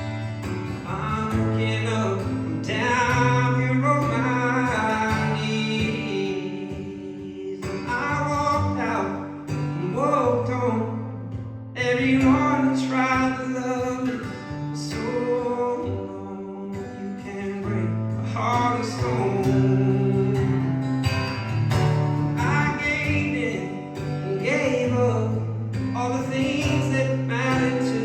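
A man singing a slow song in phrases over guitar accompaniment.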